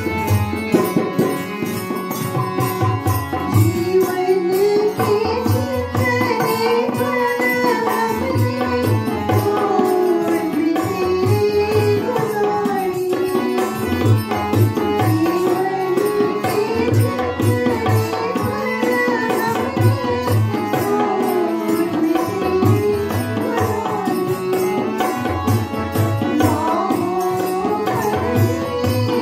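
A woman sings a melody into a microphone, accompanied by a harmonium holding steady chords and a hand drum keeping a regular beat.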